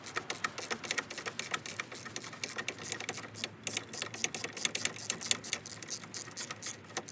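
Socket ratchet clicking quickly and evenly, about seven or eight clicks a second, as it winds out the 18 mm bolt holding the wishbone to the front hub.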